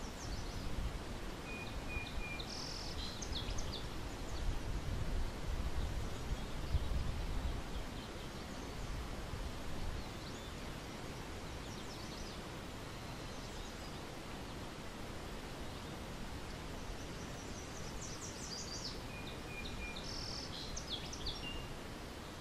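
Outdoor nature ambience: a steady background hiss with a low rumble through the first half, and a small bird singing a short, twittering phrase twice, once a couple of seconds in and again near the end.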